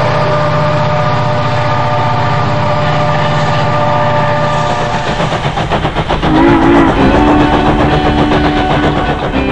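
Locomotive sounds: a diesel locomotive running with its horn sounding steadily, then from about five seconds in a steam locomotive chuffing in a quick even rhythm, with a whistle sounding through the last three seconds.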